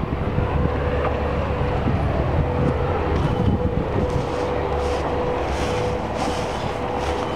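Steady low rumble with a thin, steady hum above it. Faint short rustles come and go from about halfway through.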